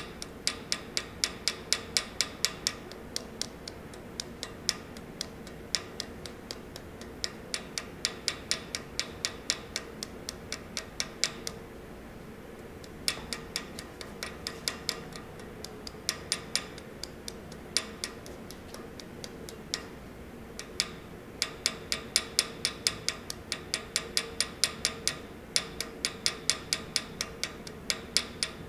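Small hammer tapping the end of a metal wire rivet held in a bench vise, light metallic taps about three a second in long runs with two short pauses. The hammer is worked by its own weight to flare the wire end into a mushroom rivet head.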